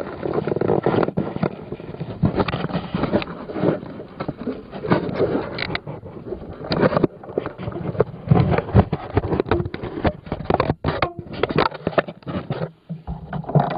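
Handling noise on an iPod's built-in microphone: irregular rubbing, scraping and knocks as the device is held against a hand and clothing while it is fitted to an RC airplane. It goes quieter near the end.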